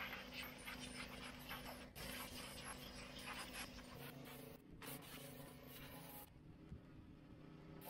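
Wet sandblasting: a pressure-washer sandblasting kit spraying water and sand against a VW Beetle's steel body shell, a rough hiss with a steady engine hum underneath. The sound changes abruptly about two seconds in, and the hiss mostly falls away in the last second and a half, leaving the hum.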